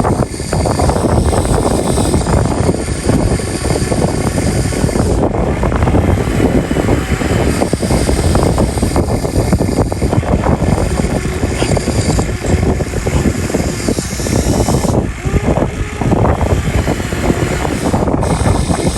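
Excavator at work: a loud, steady machine noise with a dense crackling texture that runs without a break.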